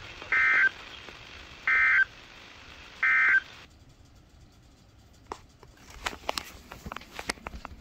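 Weather radio sounding the EAS/SAME end-of-message: three identical short bursts of warbling data tones, about a second and a half apart, over background hiss. The hiss cuts off shortly after the third burst, and a few faint clicks follow.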